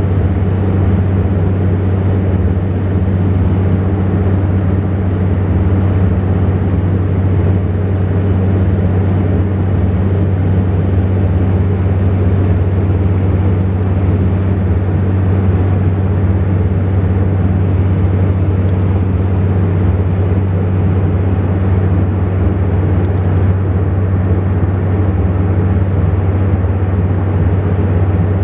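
Cabin sound of a Saab 2000 turboprop airliner in flight: the steady drone of its two Rolls-Royce AE 2100 turboprop engines and propellers, a deep even hum over a constant rush of noise.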